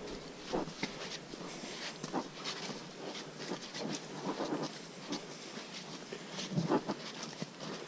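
Hikers' footsteps on a muddy, leaf-strewn trail: an irregular series of soft footfalls, about one or two a second, over a steady faint hiss.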